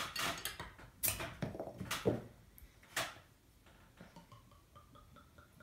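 Beer bottle being opened with a metal bottle opener: several sharp clicks about a second apart, the last near three seconds in. After that, beer is poured faintly into a glass.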